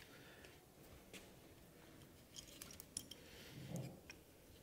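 Near silence with a few faint clicks and light handling noise as a winch stop block is worked onto the winch rope by hand.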